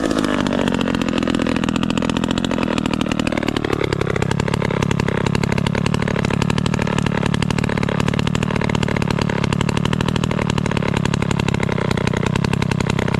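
1957 Danarm Fury chainsaw's 98cc Villiers 5F two-stroke engine coming off high revs. It sags low for a few seconds, picks up again about four seconds in, then settles into a steady idle.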